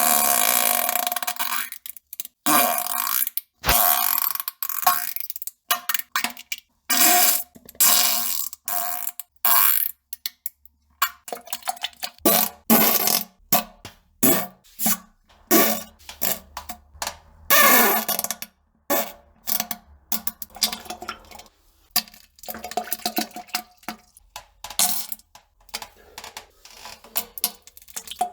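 A rapid string of short fart and poop sound effects, dozens of brief bursts that cut off abruptly with short silent gaps between them. Some are low pitched and buzzing, others noisy and spluttering.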